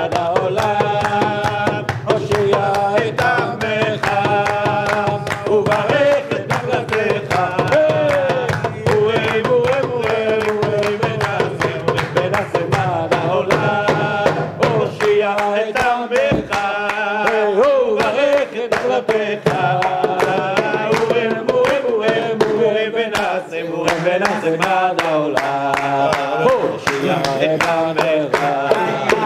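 Group of men singing a Hebrew religious song in unison, with rhythmic hand clapping and a darbuka drum beating along; the drum drops out about halfway while the singing and clapping go on.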